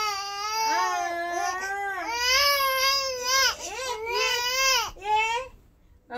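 Young infant vocalizing in long, wavering, high-pitched calls, between fussy crying and cooing, about five of them with short breaks between.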